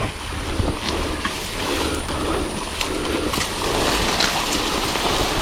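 Tall grass rustling and brushing against a person pushing through it on foot, a continuous rough rustle with small snaps.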